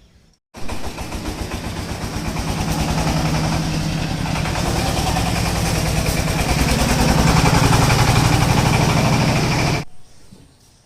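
An engine running close by, with a fast, even firing beat that grows louder over several seconds. It starts abruptly about half a second in and cuts off abruptly near the end.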